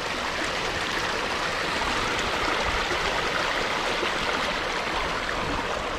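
Water running steadily out through a beaver dam breached by a tannerite blast.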